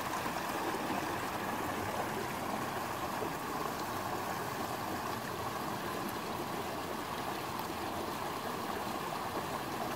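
A small mountain creek running steadily over and through a jam of fallen logs.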